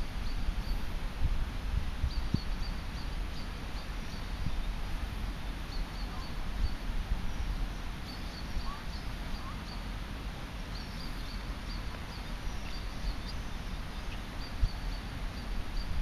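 Outdoor background noise: a low, unsteady rumble with faint, short, high chirps repeating now and then.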